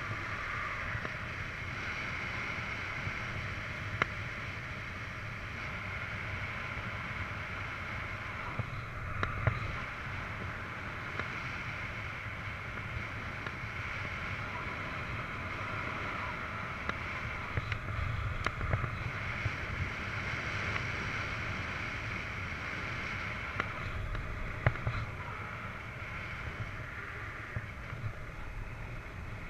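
Steady rush of airflow over the microphone of a wearable camera in paraglider flight, with a few faint clicks scattered through.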